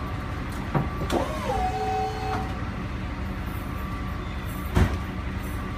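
A truck engine idles with a steady low rumble. There are a couple of sharp knocks about a second in, then a short tone that slides down and holds for about a second, and a louder thump near the end.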